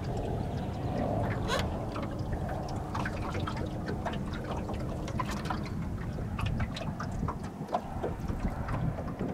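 Water lapping and trickling against a fishing boat's hull in irregular small splashes, over a low wind rumble on the microphone. A faint steady hum runs through the first half and stops a little past halfway.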